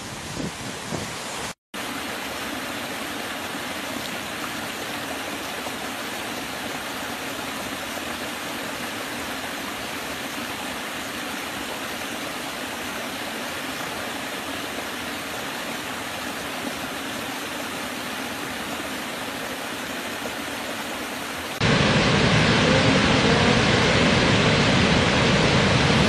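Steady rush of a small woodland stream spilling over low rock steps, after a brief dropout near the start. Near the end it gives way to the louder, fuller rush of a large waterfall.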